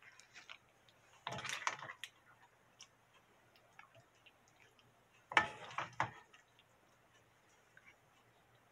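Wooden spatula scraping and scooping braised monkfish in thick, starch-thickened sauce out of a pot and onto a plate. There are two short bursts of wet scraping and clacking, one about a second in and one about five seconds in, with light scattered ticks between them.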